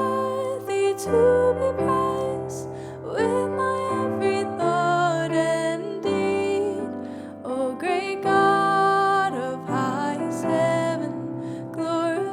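Slow, gentle worship-song music with piano chords under a melody line that holds long, wavering notes and slides between pitches.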